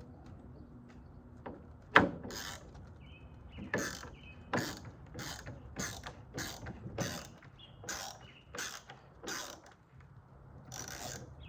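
A ratcheting hand tool clicking through about ten strokes, a little under two a second, after one sharp click. A bird chirps a few times between the strokes.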